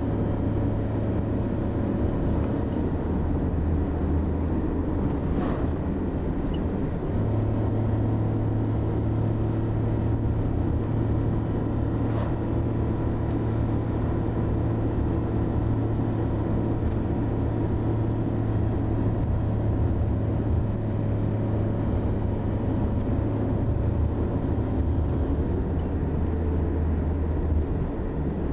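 A steady low rumbling drone, its pitch shifting slightly about seven seconds in and again near the end.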